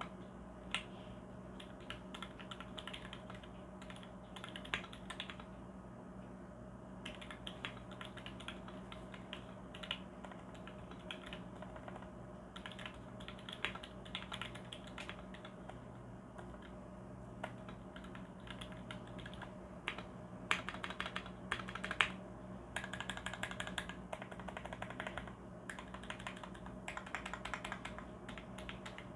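Typing on a Tofu mechanical keyboard with Gateron KS-3 switches lubed with Krytox GPL205 G0. The keys clack in quick runs broken by short pauses, with a few single louder strokes. A faint steady hum runs underneath.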